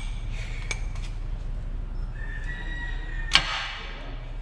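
Steel ball joint press tool and adapters being fitted together: a light metal clink, then a short, slightly rising squeak, then a sharp metal clank about three seconds in.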